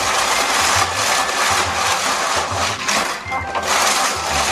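Hand-cranked Tomica Cars 3 action course whirring and rattling as its red dial is spun, the plastic drive mechanism sweeping die-cast cars around the oval track. A steady noisy whirr that dips briefly about three seconds in.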